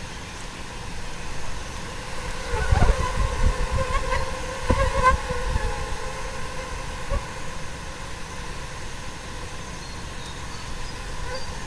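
A roosting swarm of small fruit flies buzzing: a steady hum of countless wings. Between about two and a half and five seconds in, and once more near seven seconds, low bumps hit the microphone, the kind the recordist puts down to flies blundering into it.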